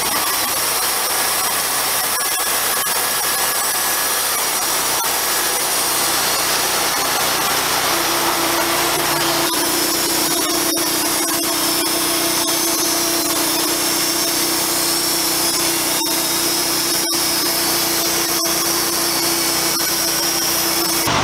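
Wood-Mizer LT40 Hydraulic portable bandsaw mill running, its band blade sawing steadily along a log in one continuous cut. A steady hum joins about eight seconds in, and the sound holds at the same even pitch through the cut.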